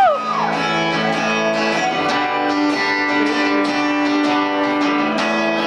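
Guitar strummed in a steady rhythm, playing the chords of an instrumental passage between sung lines.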